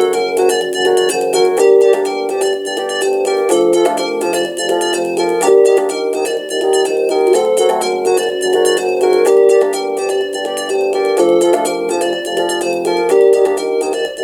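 FM-synthesised music from a Commodore 64 SFX Sound Expander's Yamaha YM3526 chip, playing General MIDI patches. A quick, evenly repeating run of plucked-sounding notes plays over held chords, with a lower line coming in and out.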